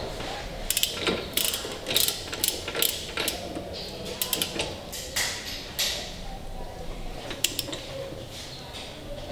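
Ratcheting torque wrench working in repeated strokes, its pawl clicking in quick irregular runs, as a rear wheel hub nut is tightened toward 140 N·m.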